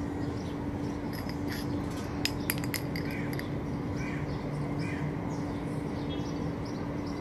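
A quick run of sharp clicks about two seconds in: a small hard snail shell knocked and skittering across stone tiles as a kitten bats it. This sits over a steady low hum of outdoor background noise, with faint bird chirps.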